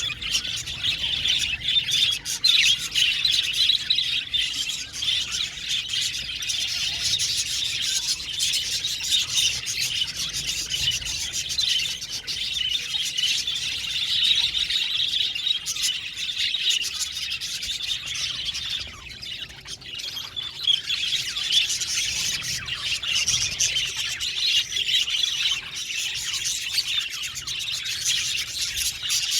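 A flock of budgerigars chirping and chattering all at once, a dense, continuous twittering of many birds, easing briefly about two-thirds of the way through.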